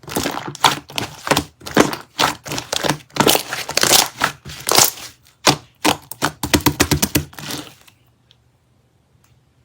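Close, crackly crinkling handling noise in quick, irregular strokes that stops abruptly about eight seconds in, leaving only a few faint ticks.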